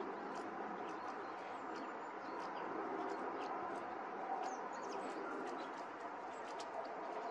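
Small songbirds giving many short, high chirps in quick succession over a steady background din.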